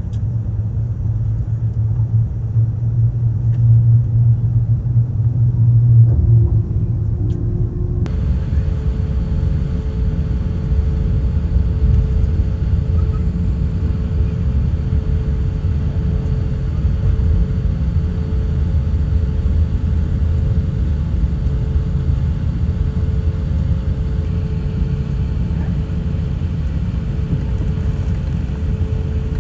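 Airbus A350-900 airliner cabin noise: a steady, loud, low rumble of engines and airflow. About eight seconds in the sound changes abruptly, turning fuller and gaining a steady hum.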